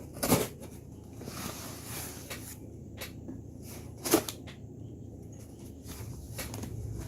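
Cardboard shipping box being handled and opened, with two sharp knocks about four seconds apart and rustling and small taps between them.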